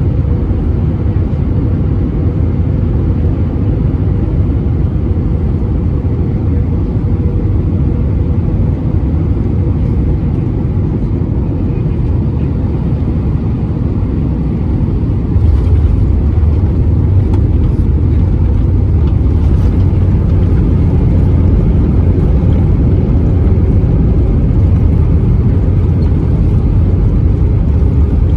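Steady low rumble of a vehicle in motion, growing louder about halfway through.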